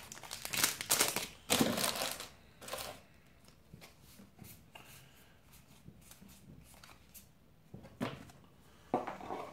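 Foil wrapper of a Magic: The Gathering booster pack crinkling as the stack of cards is pulled out, then the softer slides and ticks of the cards being thumbed through one by one, with two short rustles near the end.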